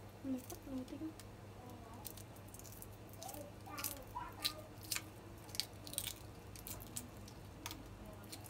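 Shell being peeled off a hard-boiled egg by hand: a scattered series of small crackles and clicks as pieces of shell break away.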